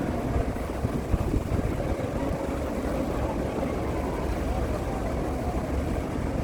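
A steady low rumble with faint voices of people talking under it.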